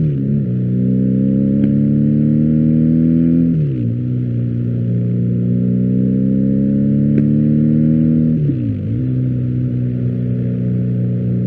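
BMW R1250GS boxer-twin engine through an Akrapovič exhaust, pulling through the gears: the engine note climbs steadily, dips sharply with an upshift right at the start, again about four seconds in and near nine seconds, and climbs again after each.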